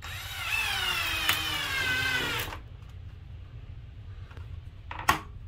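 Porter-Cable 20V cordless drill driving a screw into a blind mounting bracket: the motor whines with its pitch falling steadily as the screw loads it, then stops about two and a half seconds in. A short sharp click near the end.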